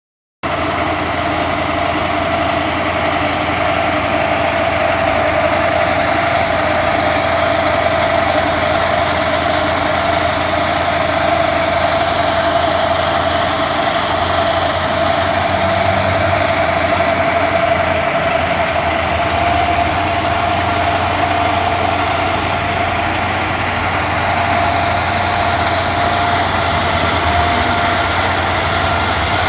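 An engine running steadily, with a constant high whine over a low hum.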